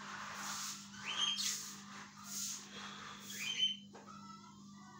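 Okra being stir-fried in a wok: a spatula scraping through the pan in strokes about once a second. A bird gives a rising, whistle-like chirp twice.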